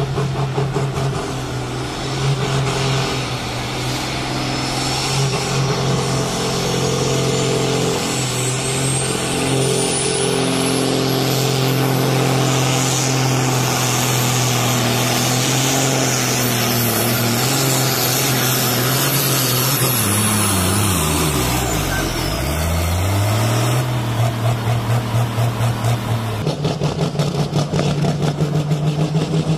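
Super Sport class pulling tractor's diesel engine running at steady high revs under load, with a high whistle that rises over the first dozen seconds and fades out about twenty seconds in. At the same point the revs drop sharply and climb back. Near the end a second pulling tractor's engine runs with a pulsing beat.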